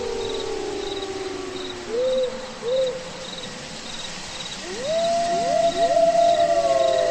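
Eerie night soundtrack: crickets chirping steadily about twice a second under long, overlapping howls that slide slowly down in pitch. Two short rising-and-falling calls come about two seconds in, and fresh howls swell up and hold about five seconds in.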